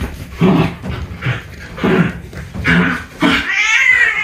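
A dog growling in short bursts, about one every two-thirds of a second, then a high wavering cry near the end.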